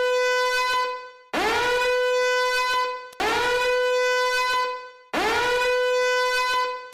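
A buzzy horn-like blast sounded over and over, about every two seconds: each note slides up into the same held pitch and then fades away.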